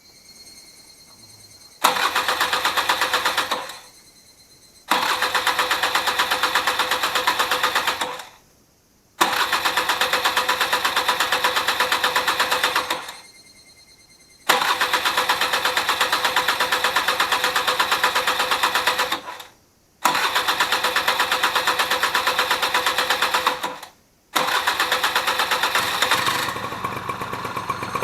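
Honda Joker two-stroke scooter engine being started six times in a row: each time it runs for a few seconds and dies away, until on the last attempt it keeps running and settles to a steady idle near the end. These are start-up attempts on a freshly rebuilt engine with a replacement cylinder and oil pump after a seizure.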